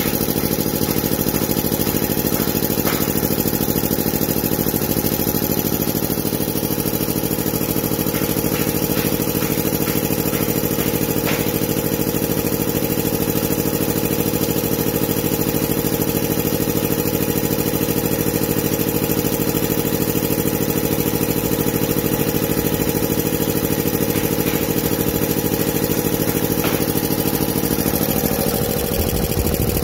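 FS Curtis VA 100 two-head, belt-driven piston air compressor with a 7.5 hp motor, running steadily under load as it pumps its tank up toward 8 bar. Near the end the steady running breaks off as the pressure switch cuts the motor at full pressure.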